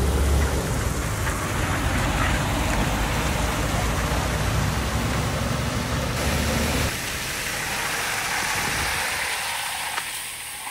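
Semi-trucks passing on a wet road: a low diesel engine rumble with tyre hiss on the wet pavement. The rumble drops away about seven seconds in, leaving a quieter hiss.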